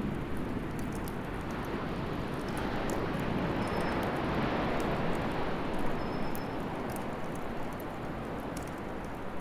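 Wood fire burning in a fire pit: scattered sharp crackles and pops over a rushing noise that swells about halfway through, then eases.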